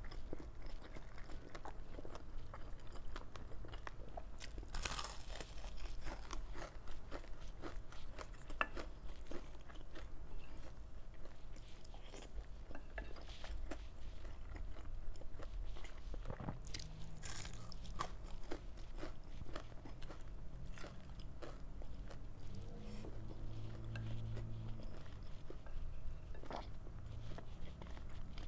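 Close-miked eating: crunching, biting and wet chewing of crispy fried galunggong (round scad), a dense run of small mouth clicks and crackles, with a few low closed-mouth hums in the second half.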